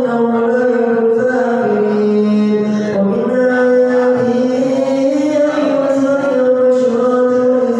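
A man's voice chanting in long, ornamented held notes that slide between pitches, in the melodic style of Quran recitation (tilawah).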